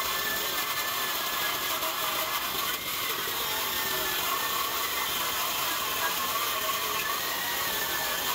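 Milwaukee M18 cordless metal-cutting circular saw ripping lengthwise through a steel truck frame rail, a steady whine over cutting noise.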